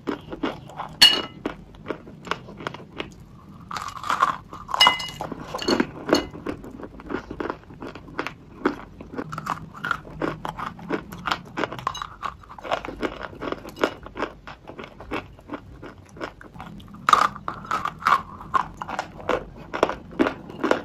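Dry, layered grey clay being bitten and chewed, a dense irregular stream of sharp crunches and crackles. There are louder bites about a second in, a few seconds later, and again near the end.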